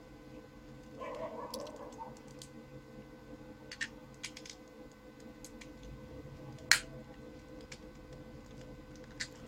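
A short rustle, then a few scattered sharp clicks of a small plastic pocket multitool being handled, the loudest click about two-thirds of the way through.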